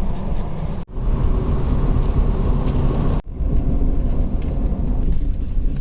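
Ford F-250 pickup driving, heard from inside: a steady low rumble of engine and road noise. The sound cuts out sharply twice for an instant, about a second in and about three seconds in.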